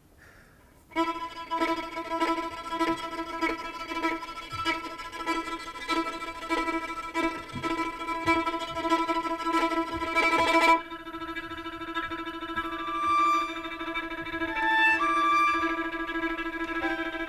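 A string quintet of violins, viola, cello and double bass starts playing about a second in: a busy, rhythmic bowed passage over a steady repeated note. Near 11 s the rhythmic part drops away, leaving a held note under a higher melody.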